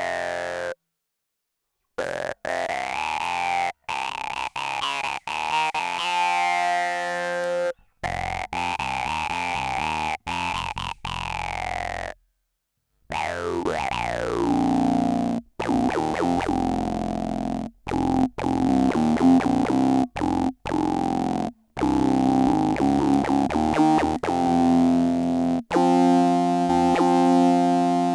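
Electric bass played through an Electro-Harmonix Bass Mono Synth pedal, recorded direct, giving monophonic synth-bass notes. A resonant filter sweeps up and down through the notes, with one long downward sweep about halfway through. The notes come in short phrases broken by dead-silent gaps.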